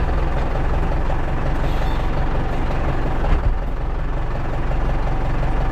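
Tractor diesel engine running steadily, heard from inside the cab, with a brief thump about three seconds in.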